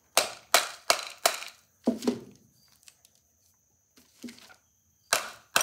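Oak block striking the steel end plate of a Victor II phonograph spring barrel: a run of sharp knocks, about three a second, then a pause and two more near the end. The blows are driving off the pressed-in end plate, which has started to move.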